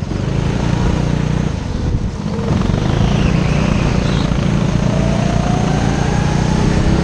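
Go-kart engine heard from the driver's seat, running hard with a steady buzz, with another kart's engine close by; the pitch climbs slowly over the last couple of seconds as the karts accelerate.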